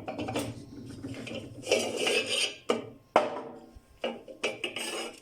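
Twisted square steel tube being pulled out of a cold-forging machine, scraping and clanking metal on metal, with a sharp clank a little after three seconds in.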